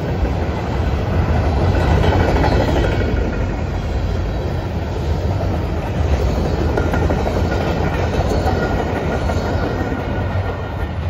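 Empty covered hopper cars of a freight train rolling past: a steady rumble of steel wheels on rail that eases slightly near the end.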